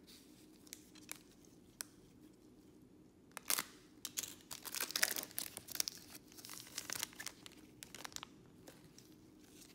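A foil trading-card pack wrapper is torn open and crinkled. A few light clicks come first, then a sharp rip about three and a half seconds in, then a few seconds of dense crackling as the pack is worked open. Scattered clicks of cards being handled follow.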